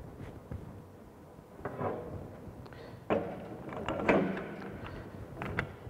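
Hand die stock cutting thread on a 1-inch pipe clamped in a vise: scattered clicks and a couple of short metallic squeaks as the handle is worked, the longest about three to four seconds in.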